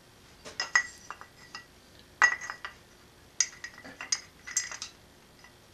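Loose metal bolts clinking as they are handled and fitted at the front of a Subaru engine block, in several short clusters of sharp metallic clinks, some ringing briefly.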